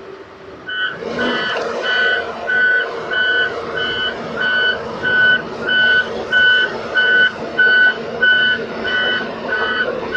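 Crawler excavator's warning alarm beeping about twice a second as the machine swings, over its diesel engine running steadily.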